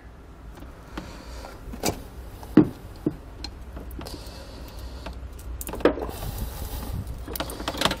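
Hand crimping pliers squeezing an insulated butt connector onto a trailer power wire, with a few sharp clicks and light handling noise of the tool and wire.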